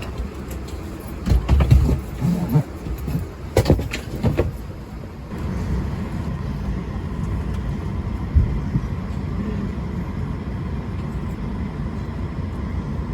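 Steady hum inside an Airbus A220-300's cabin while parked before pushback, with a handful of sharp clicks and knocks in the first few seconds and one more knock later. About five seconds in the hum turns steadier and slightly louder, with a faint steady tone over it.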